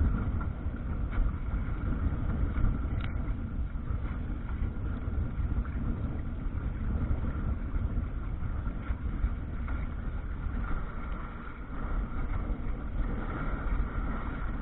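Wind buffeting the microphone in a steady low rumble, mixed with water rushing and slapping along the hull and outrigger float of a sailing canoe moving through choppy water.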